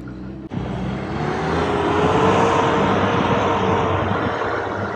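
Sherp amphibious all-terrain vehicle driving over snow: a loud rush of engine and tyre noise with a steady whine that rises slightly in pitch, swells, then eases a little. About half a second in it cuts from a low, steady engine hum.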